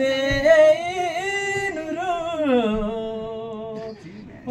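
A man singing a Karmarong song unaccompanied: one long phrase of held, wavering notes that slides down in pitch about two and a half seconds in and fades out near the end.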